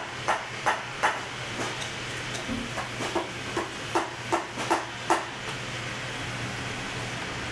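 Steel lasting pliers tapping the toe lining down over a boot last: a dozen or so sharp metal-on-leather taps, about two a second, stopping about five seconds in. A steady low hum runs underneath.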